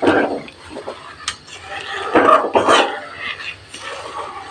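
Steel spoon stirring and scraping in a metal kadai of simmering milk, with a click about a second in. A voice in the background is loudest about two seconds in.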